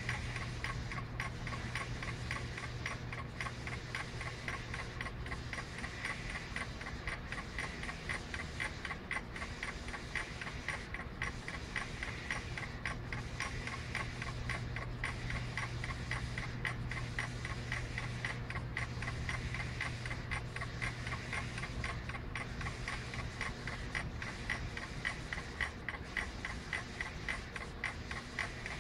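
Rapid, steady electronic ticking from a Vinmetrica SC-300 SO2 analyzer during a titration of wine, with a low steady hum underneath.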